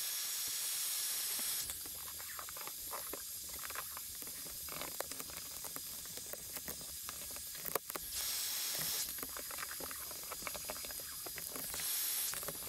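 Heat gun blowing, an airy hiss in three spells: at the start, again about two-thirds of the way through, and near the end. It is warming vinyl wrap film to soften it for stretching. Between the spells come faint crackles and ticks as the vinyl is pressed and stretched by hand.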